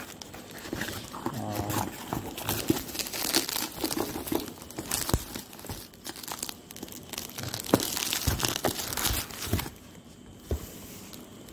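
Cardboard box and plastic packaging being pulled open and handled by hand: irregular crinkling, tearing and scraping, with sharper crackles, quieter for the last couple of seconds.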